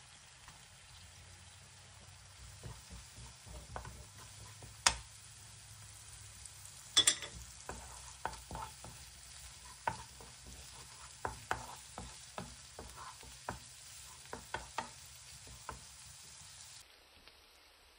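Diced onion frying in a non-stick pan, a steady sizzle, while a wooden spoon stirs it and knocks against the pan again and again, with two louder knocks near the middle. The sizzle drops away near the end.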